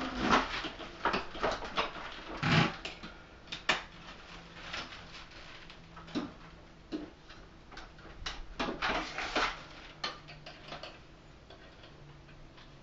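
Irregular plastic clicks, knocks and rattles of a Hoover WindTunnel Air upright vacuum's hose and wand being unclipped and handled.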